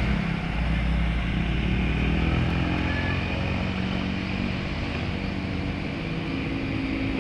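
Road traffic: a heavy vehicle's engine running with a steady low rumble.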